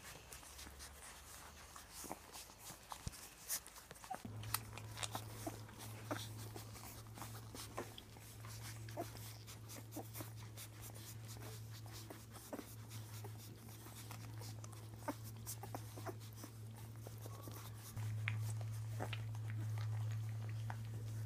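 Newborn Labrador puppies nursing: small sucking and shuffling clicks with occasional faint squeaks. Under them a steady low hum starts about four seconds in and gets louder near the end.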